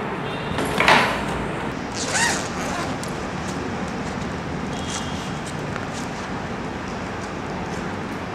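A zipper on a black leather bag pulled about a second in, then a brief pitched squeak as the bag is handled, over a steady hiss.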